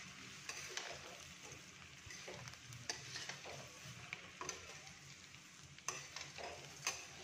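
Dry poha (flattened rice) with onion and green chilli being stirred and tossed in a kadhai with a steel spatula while it roasts: a faint steady rustling and frying hiss, with a few sharper scrapes and clicks of the spatula against the pan.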